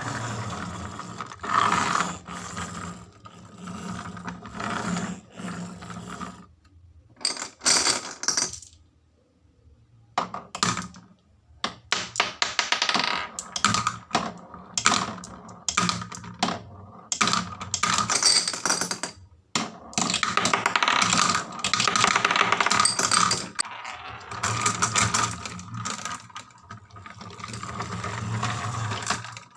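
Marbles rolling and clattering down a wooden marble run, with a dense stream of clicks and knocks and a brief lull about nine seconds in.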